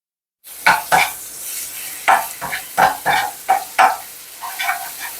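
Chopped green chillies sizzling in a little hot oil in a kadai, starting abruptly about half a second in. A spatula knocks and scrapes against the pan about eight times as they are stirred.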